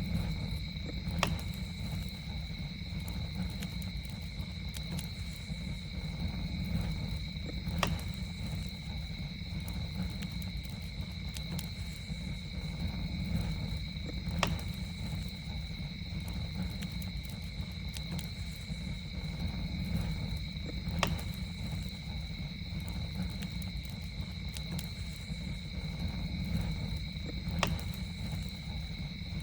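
Campfire burning with a low steady rumble and sharp crackling pops, a loud one about every six or seven seconds, over a continuous high insect trill.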